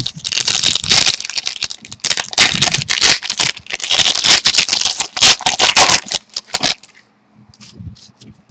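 Trading-card packs and cards handled close to the microphone: a dense crinkling and rustling of wrapper and cards for about seven seconds, then a few light clicks near the end.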